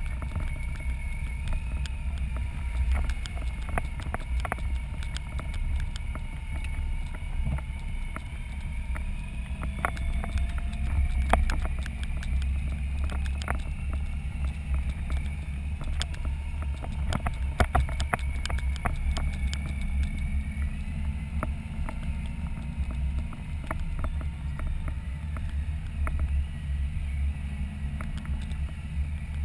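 Touring motorcycle engine running steadily at low speed, a deep constant rumble, with wind buffeting the microphone. Sharp clicks and ticks come through here and there, most thickly around the middle.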